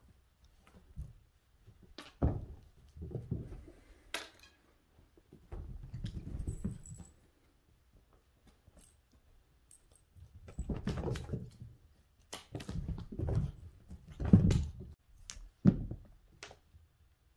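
A cat scrambling after a wand toy, making irregular thumps and rustling of paws and fabric on a rug and wooden floor. The loudest thumps come near the end, and a brief high tinkle comes about six seconds in.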